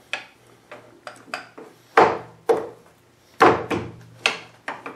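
Cast-iron compound rest of a South Bend lathe knocking and clunking against its base as it is set in place by hand: a string of sharp metal knocks, the loudest about two and three and a half seconds in.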